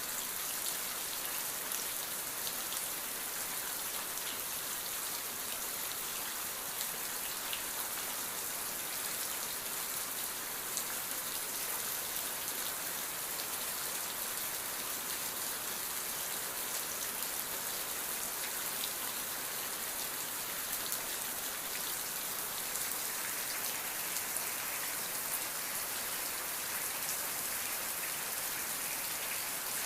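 Steady rain falling, with many small drops pattering on a surface; an even, continuous hiss of rainfall with fine individual drop ticks.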